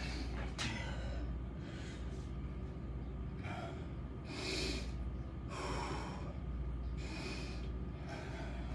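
A man breathing hard after exercise: heavy, winded breaths in and out, about one a second.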